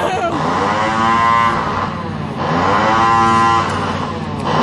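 A person imitating a cow, making long, drawn-out moos. Each swoops up in pitch at the start and then holds; two full moos are followed by a third beginning near the end.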